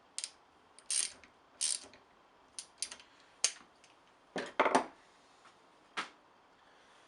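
Wrench ratcheting and metal clinking as the cover bolts on a Ford Model A steering box are snugged down: short separate clicks and brief scrapes, with the loudest cluster a little past four seconds in.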